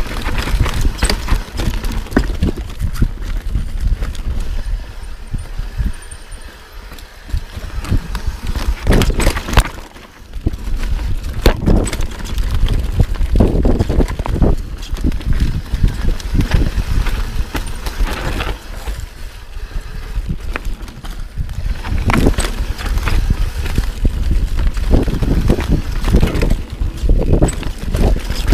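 Full-suspension mountain bike, a Yeti SB6c, ridden fast down rocky, rooty singletrack: a constant low rumble with the bike clattering and rattling over rocks and roots, easing briefly a few times before picking up again.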